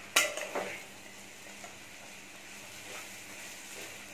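A metal spatula knocks and scrapes against a kadai a few times in the first second, tossing chapati strips with vegetables, then a faint sizzle of the vegetables frying in oil.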